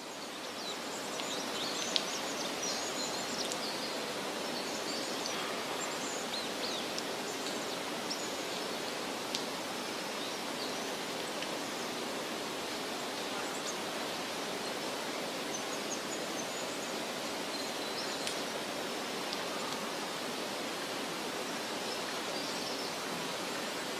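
Outdoor woodland ambience: a steady background hiss, fading in over the first two seconds, with faint high bird chirps now and then and a few small clicks.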